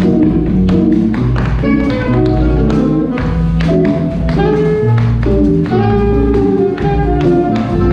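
Tap shoes clicking in quick rhythms on a wooden stage floor, over a small live jazz band playing, with saxophone and guitar among the instruments.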